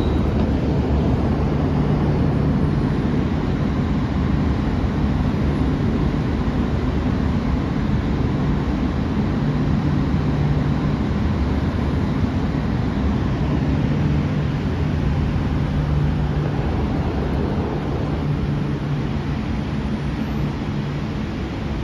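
MTR Q-train electric multiple unit running through the station: a steady, loud rumble, with a low hum that comes and goes several times.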